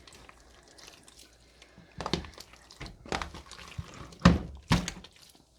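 A big mass of mixed slime with foam beads in it being worked and folded, making a few wet squelches and pops that start about two seconds in, the loudest about four seconds in.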